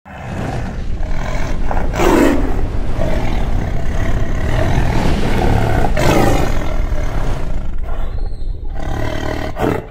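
Channel-intro sound effect: a loud, dense rumble with heavy bass and no tune, surging about two seconds in and again about six seconds in, then thinning out near the end.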